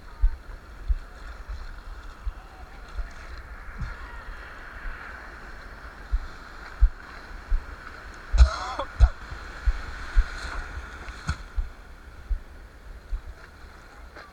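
Wind buffeting the microphone in irregular low thumps over a steady hiss of Atlantic surf. About eight and a half seconds in there is a short, wavering call.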